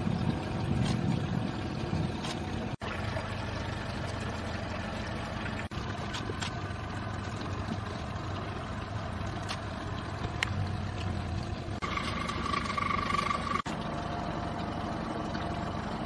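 A boat's motor running steadily with a low hum and a wash of noise, breaking off for an instant three times. Near the end a steady high tone sounds for about two seconds.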